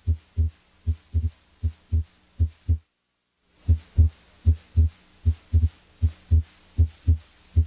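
Heart sounds heard through a stethoscope diaphragm at the aortic area: regular lub-dub pairs (S1 then S2) at about 75 beats a minute, where S2 is usually louder than S1. The beats break off for about half a second about three seconds in, with a faint steady hum underneath.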